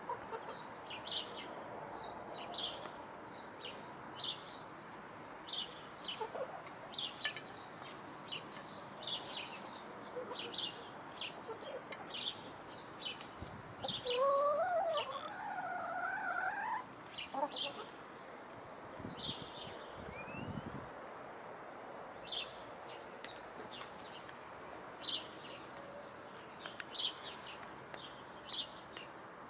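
Domestic hens feeding, with one hen giving a drawn-out, wavering call that rises in pitch about halfway through. Short high chirps repeat throughout.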